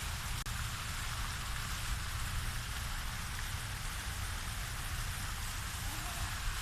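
Waterfall: a steady rush of falling, splashing water with a low rumble beneath.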